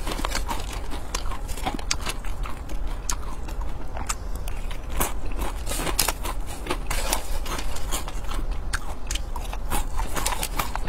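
Close-miked chewing and crunching of crisp-fried insects: a dense, irregular run of sharp crackles with each bite, over a steady low hum.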